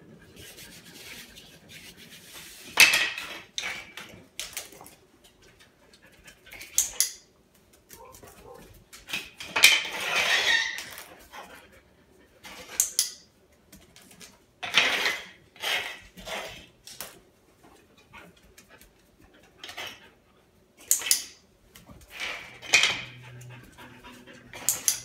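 A dog sniffing and panting in short bursts of breath while it noses over wooden scent articles to pick out the one carrying its handler's scent.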